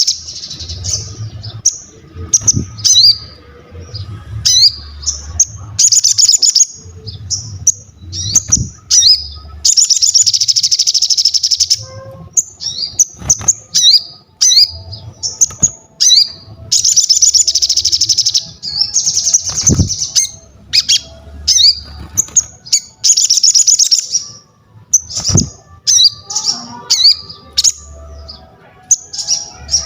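Chestnut-backed scimitar babbler (sogon) in full song: repeated runs of fast, high chattering about two seconds long, broken up by many short, sharp hooked notes.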